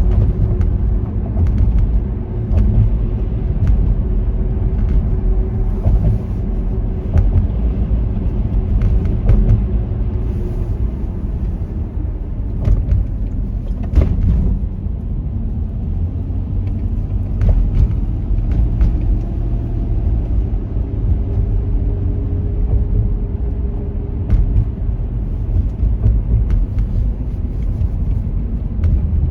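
A car driving: a steady low road-and-engine rumble with a droning tone that dips partway through and then rises again, and scattered sharp knocks.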